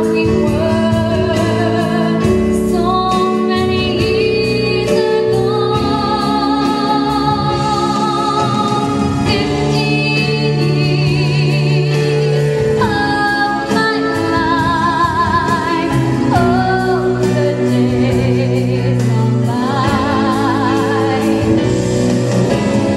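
A woman singing a melody with vibrato through a headset microphone, over instrumental accompaniment with held chords.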